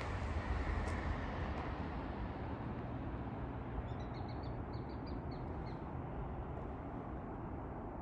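A steady low rumble and hiss of outdoor background noise, with a quick run of about ten short, high chirps from a flock of small songbirds about four seconds in.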